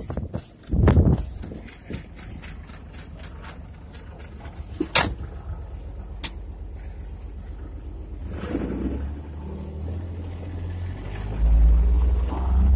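A vehicle door shuts with a sharp click about five seconds in. Then the vehicle's engine starts about eight and a half seconds in and runs with a steady low hum, getting louder near the end as it takes up speed.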